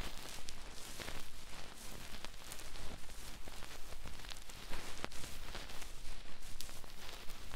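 ASMR ear-massage triggers: fast scratching and rubbing close to the microphone, a dense rustle broken by many quick, sharp taps.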